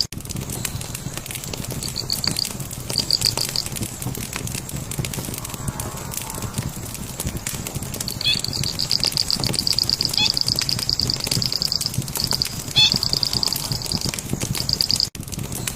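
Fire crackling with many small irregular pops over a steady low rumble, while a high, rapidly pulsed trill starts and stops every second or two. The sound cuts out for an instant near the end.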